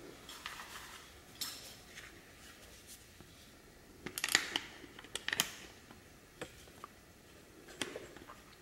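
Scattered light clicks and rattles of hard plastic parts being handled: a grinder dust shroud and its clamp ring being fitted onto an angle grinder's gear head, with a cluster of clicks around the middle.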